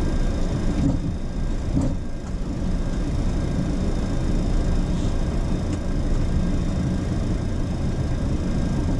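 Boeing 737-800 flight-deck noise while taxiing: a steady low rumble from the engines at idle and the aircraft rolling along the taxiway, with a few faint clicks.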